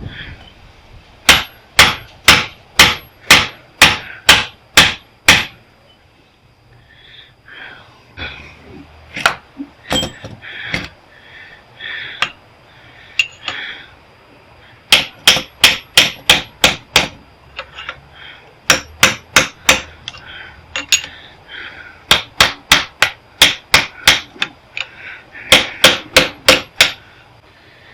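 Hammer blows on the welder's steel transformer core, knocking pieces loose to get at the copper windings. The strikes come about two a second in runs of six to nine, with pauses and a few lighter knocks between runs.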